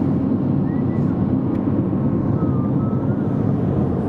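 Steady road and engine noise from inside a moving car on a highway: a dense, even low rumble.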